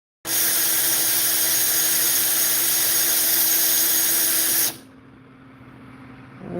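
A small handheld power tool runs at a steady speed for about four and a half seconds, a hiss with a constant motor hum under it, then stops abruptly.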